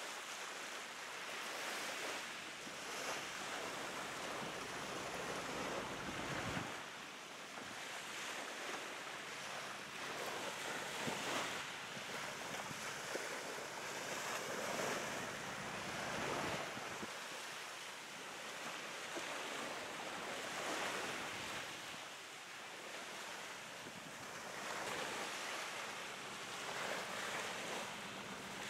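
Small waves washing ashore in slow surges every few seconds, with steady wind over the water.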